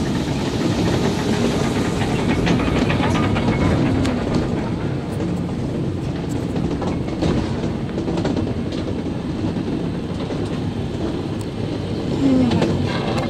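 A Nerobergbahn water-ballast funicular car running along its track: a steady rumble of wheels on rails, with scattered clicks and rattles.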